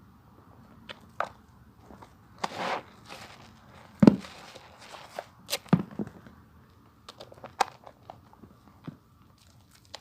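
Hands lathering a bar of soap: irregular wet rubbing, squelches and clicks, with a brief rubbing hiss between two and three seconds in and a louder knock about four seconds in.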